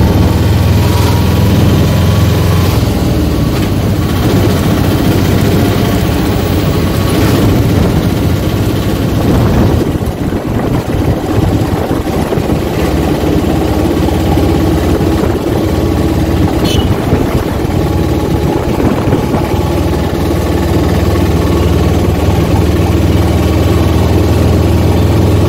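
A vehicle engine running while moving along a street, with heavy wind rumble on the microphone; it eases off briefly about ten seconds in.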